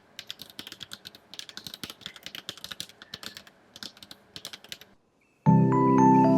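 Linear mechanical keyboard switches (Kailh Cardamom) being typed on: bursts of rapid key clicks and bottoming-out clacks. About five seconds in the typing stops and music with sustained tones begins.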